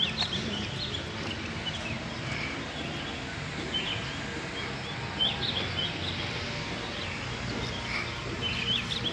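Short, high chirping animal calls, scattered irregularly, over steady outdoor background noise.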